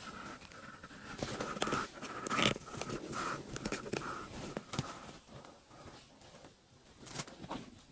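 Irregular rustling, scuffs and knocks of someone moving about a room and handling bedding, with a faint steady high tone underneath that fades out about five seconds in.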